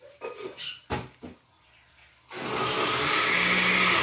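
Electric blender switched on about two seconds in and running steadily, blending a thin tomato, onion and chile salsa. A sharp knock comes just before, about a second in.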